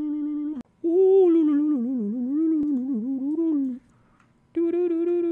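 A man humming wordlessly. He holds one note that breaks off after about half a second, then hums a wavering, up-and-down line for about three seconds, pauses, and holds a steady note near the end.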